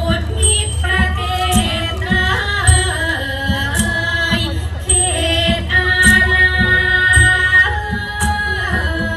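Thai classical dance music played through the stage loudspeakers: a sliding, wavering melody over small hand cymbals that strike about once a second. A steady low rumble runs underneath.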